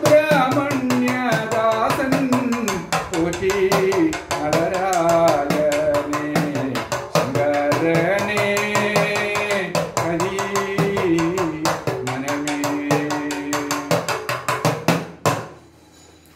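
A man singing Sopana Sangeetham, the Kerala temple song style, in long held and sliding notes, accompanying himself on an idakka, the shoulder-slung hourglass drum, with a dense run of quick strokes. Singing and drum stop together shortly before the end.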